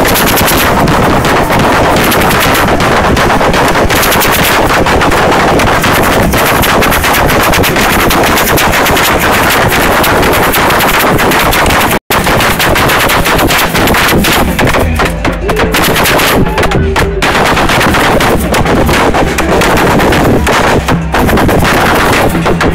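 Samba bateria of a carnival bloco drumming in dense, continuous rhythm, heavily distorted by an overloaded phone microphone. The recording cuts out for an instant about halfway.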